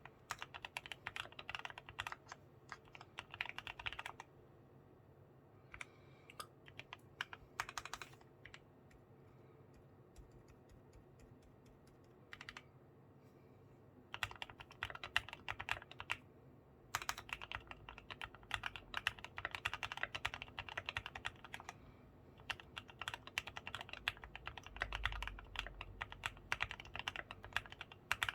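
Keychron Q1 aluminium mechanical keyboard with self-lubricated Gateron black linear switches being typed on: fast runs of keystrokes, broken by a lull of about ten seconds with only a few scattered key presses, before steady typing resumes.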